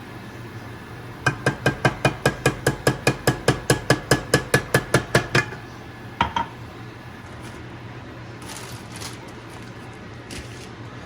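A metal utensil striking a dish in quick repeated clinks, about five a second for some four seconds, each with a short ringing tone, then one more clink a moment later, as when beating or stirring briskly in a bowl.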